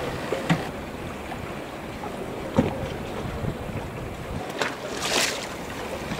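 Wind on the microphone over choppy sea water washing, with a few faint knocks and a short rushing hiss about five seconds in.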